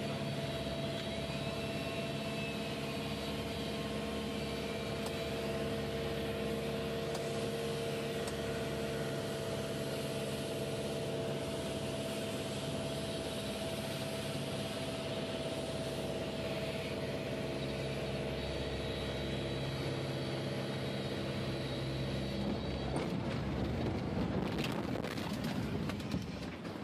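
Cabin noise of a small single-engine plane gliding in for a forced landing after engine failure: a steady drone of several fixed pitches. About 23 seconds in it gives way to a louder rough rumbling and rattling as the plane touches down and bumps across the ground, then fades.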